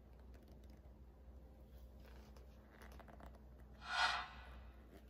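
Faint handling noises from a small plastic bottle with paper strips inside and its paper packaging: light clicks and rubbing, then one brief louder rustle about four seconds in.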